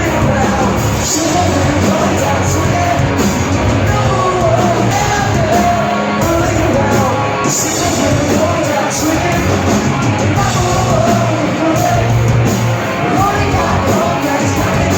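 Rock song with a singer's vocals over guitars and drums, playing steadily as background music.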